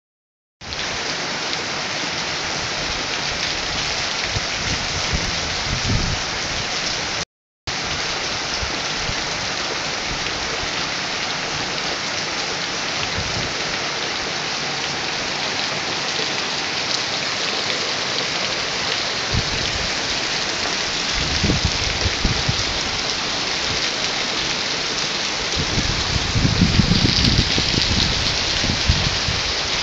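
Heavy rain falling steadily, with low rumbles swelling several times and loudest near the end. The sound cuts out briefly about seven seconds in.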